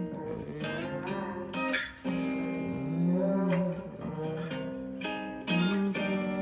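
Background song led by acoustic guitar, plucked and strummed, between sung lines.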